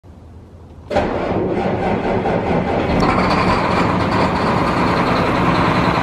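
A large farm machine's engine catches with a sudden rise about a second in, then runs steadily, picking up slightly about three seconds in.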